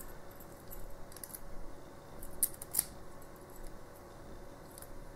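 Light metallic clicks and ticks of a brass padlock cylinder and a thin steel tool handled in the fingers, with two sharper clicks about two and a half seconds in.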